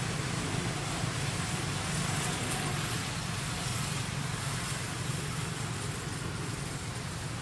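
Steady outdoor background noise: a low hum under an even hiss, with no distinct events.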